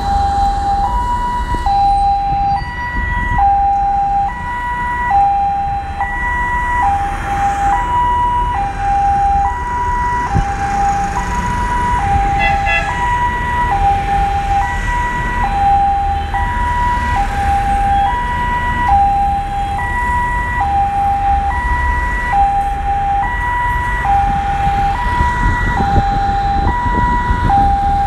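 A vehicle's two-tone hi-lo siren alternating steadily between two pitches, about one high-low cycle every second and a half, over the low rumble of road traffic.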